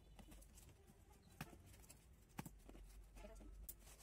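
Faint snips of scissors cutting jute twine on a cardboard box, with two sharper clicks about one and a half and two and a half seconds in.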